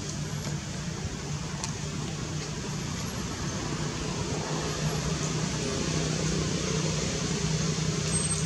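Steady background hum with an even hiss, growing slightly louder about halfway through.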